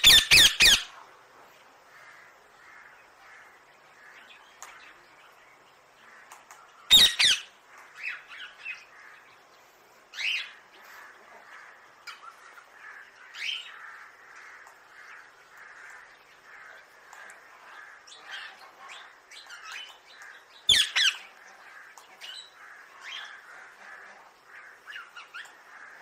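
Rose-ringed parakeets squawking: loud, harsh screeches at the start, about seven seconds in and about twenty-one seconds in, with shorter calls between them over a faint, continuous background chatter.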